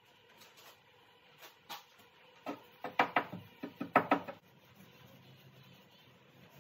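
A quick run of sharp knocks and clicks lasting about two seconds, starting a couple of seconds in: hard gear being handled and knocked together.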